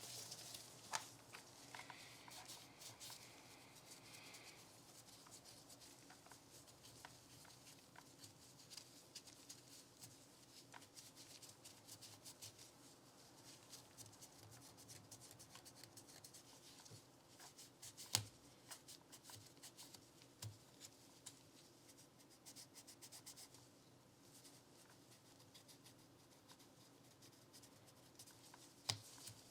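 Faint hand-work on a Glock pistol and its small parts: light rubbing and handling, with scattered small clicks, the sharpest about 18 seconds in.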